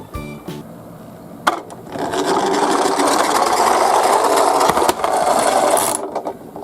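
Toy garbage-truck minicar rolling down a slope, its small wheels making a steady rattling whir for about four seconds that cuts off sharply near the end. A single click comes just before it starts.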